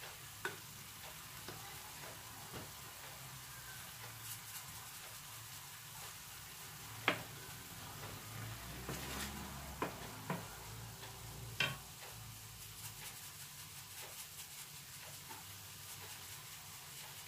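Diced pork frying with a faint steady sizzle in a stainless steel pan as it is stirred with a wooden spoon. A few sharp knocks of utensils against the pan stand out, the loudest about seven seconds in and others near ten and twelve seconds.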